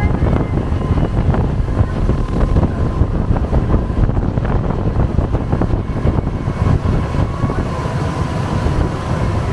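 Wind buffeting the microphone on the deck of a moving tour boat, over the steady rumble of the boat's engine; a loud, even rumble with no clear breaks.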